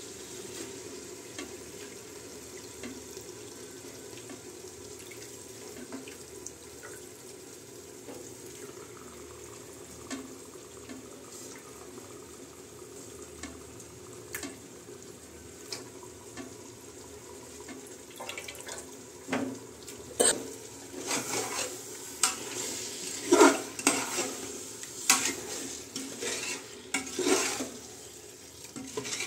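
Chicken pieces frying in masala in an aluminium pressure cooker pan, a steady low sizzle. From about two-thirds of the way through, a metal slotted spoon scrapes and clanks against the pot as the chicken is stirred.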